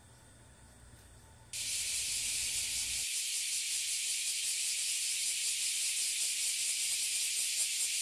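Bear cicadas (kuma-zemi) singing: a loud, steady, high hissing buzz with a fine rapid pulse, which starts suddenly about a second and a half in.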